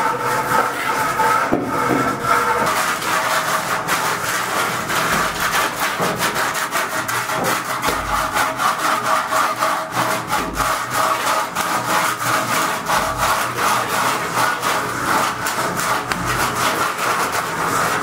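Plastering trowel scraping and rubbing over cement render on a wall, in rapid repeated strokes.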